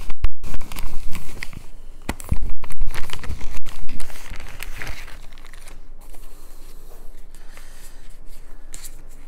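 Plastic packaging being torn open and crinkled: loud crackling for about the first four seconds, then quieter rustling as it is handled.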